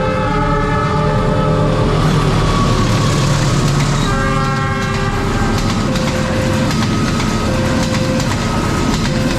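A train passing over a level crossing with a loud rushing clatter of wheels, its horn sounding briefly about four seconds in. Through it all the crossing's electronic Multec warning siren keeps sounding, alternating a low and a high tone.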